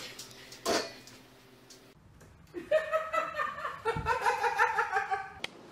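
A knock near the start, then about three seconds of high-pitched laughter in quick repeated bursts.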